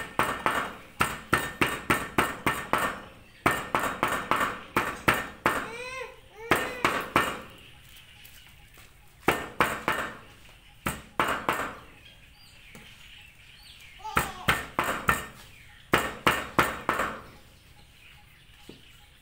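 Cleaver mincing raw pork on a round chopping board: quick runs of sharp chops, about four a second, in several bursts separated by short pauses.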